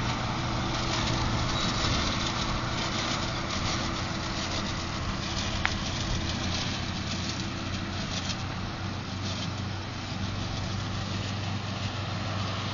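JCB Fastrac tractor's diesel engine running steadily while it pulls a forage wagon, with a brief sharp click about halfway through.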